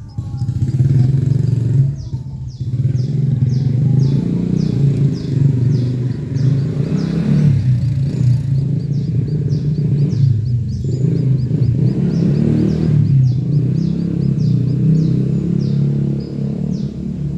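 Small birds giving short, high chirps, a couple each second, over a loud, steady low rumble like an engine running close by.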